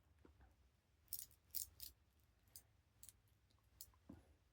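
Faint, sharp metallic clicks from a combination padlock's number wheels being turned by hand: a quick run of three or four clicks about a second in, then scattered single clicks.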